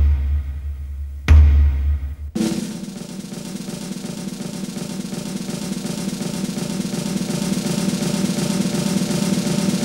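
Circus band drums: two deep bass drum beats, one at the start and one about a second and a half in, then a snare drum roll from about two and a half seconds in that slowly grows louder, the build-up before the climax of a strongman's act.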